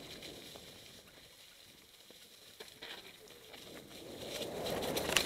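Mountain bike tyres rolling over a trail covered in dry fallen leaves, a rustling crunch with clicks and rattles from the bike. It grows louder in the last second or so, with a sharp click just before the end.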